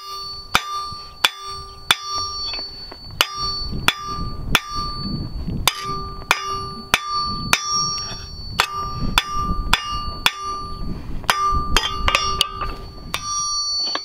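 Hand hammer striking a red-hot steel pick point on an anvil, the anvil ringing after each blow: about twenty strikes at roughly one and a half a second, with a couple of short pauses. The hot tip is being drawn out to a sharp point, the forging step of sharpening the pick.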